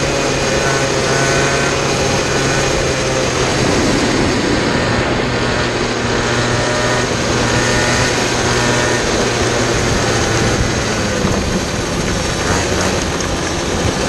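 Kid kart's small engine running at low, fairly steady revs as the kart rolls slowly, its pitch shifting slightly a few times, under a steady rush of wind noise on the onboard microphone.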